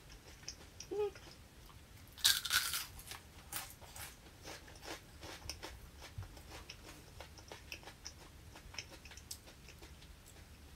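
A person chewing crunchy food up close: scattered small crunches and mouth clicks, with a louder crunching burst about two seconds in.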